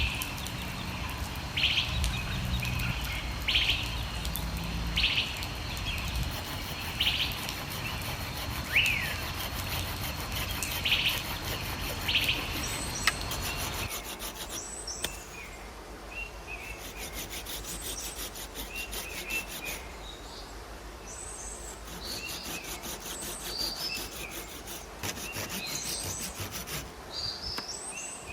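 Birds calling outdoors: a short high call repeats about every second and a half over a steady noisy background, then the sound changes abruptly about halfway to a quieter background with several birds giving quick high chirps.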